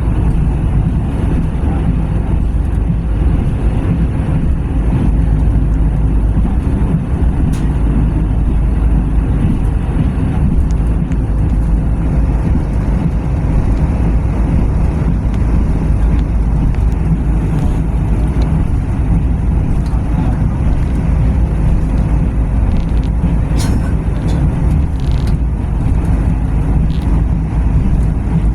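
Steady low rumble of a moving passenger train heard from on board, with a faint steady hum and a few light clicks and rattles.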